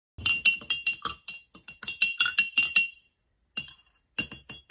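Spoon stirring water in a drinking glass: a quick run of ringing clinks, about five a second, stopping briefly after about three seconds and then starting again.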